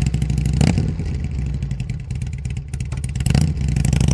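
Motorcycle engine running with a loping, pulsing exhaust note, revving up near the end.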